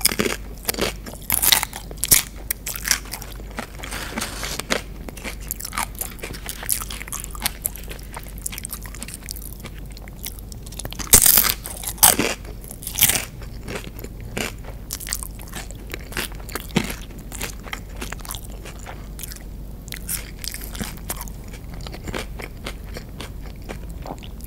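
Close-miked chewing and crunching of shredded romaine lettuce from a burrito bowl: a steady run of wet crunchy bites and chews, the loudest crunches about halfway through.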